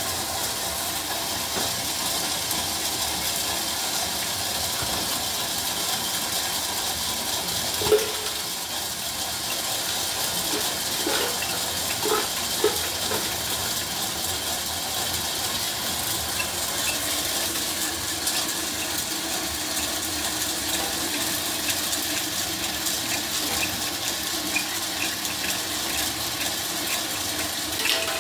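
Homemade popcorn machine running with a steady hissing noise. A sharp knock comes about eight seconds in, a few more knocks follow a few seconds later, and faint ticks sound near the end.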